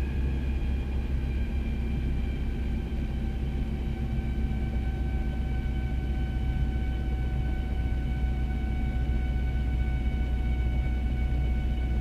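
Rotorway helicopter heard from inside its cabin, running on the ground: a steady low drone with a whine whose pitch falls slowly throughout as the engine and rotor wind down.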